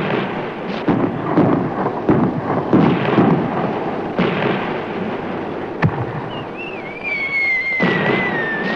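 Fireworks going off overhead: a continuous run of booms and sharp bangs. Near the end a thin whistle wavers and slowly falls in pitch.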